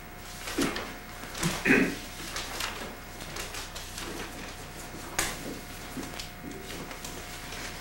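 Paper rustling and a few light knocks and clicks at a table covered in papers, with a short vocal sound from one of the people nearly two seconds in.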